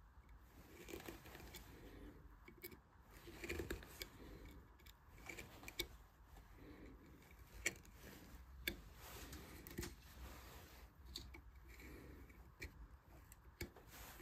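Faint, irregular clicks and short scraping cuts of hand carving tools working into wood.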